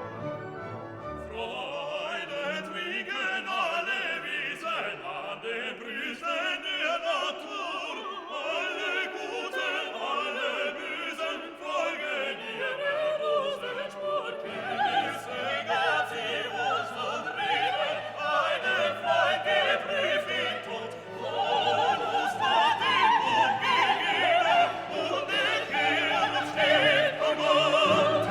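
Background music: orchestral classical music with operatic singing.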